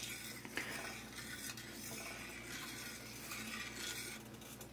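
A metal spoon stirring thin onion gravy in a stainless steel skillet: faint scraping and swishing, with a few light clicks of the spoon against the pan.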